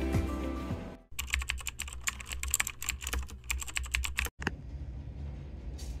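Typing on a laptop keyboard: a quick, uneven run of key clicks for about three seconds, after soft music fades out in the first second. The typing cuts off abruptly and is followed by quiet room noise.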